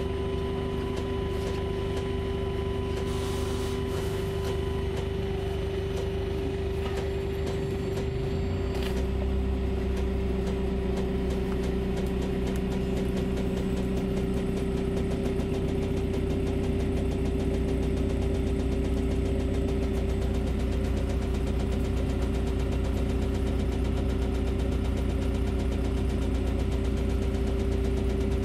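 On board a Volvo 7900A Hybrid articulated city bus: a steady whine from the running bus. About nine seconds in, the diesel engine starts and a deeper engine drone carries on under the whine.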